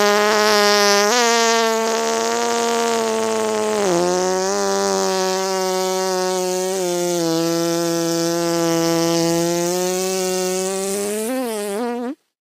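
One long buzzy held note, a single pitch rich in overtones, lasting about twelve seconds. Its pitch dips slightly about four seconds in and wavers briefly a few times, then it cuts off abruptly near the end.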